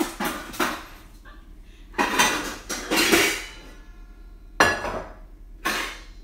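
Metal pots and pans clanking and rattling against each other as a stainless steel saucepan is dug out of a low cupboard, with a longer clatter in the middle and a sharp metal knock about two-thirds of the way in.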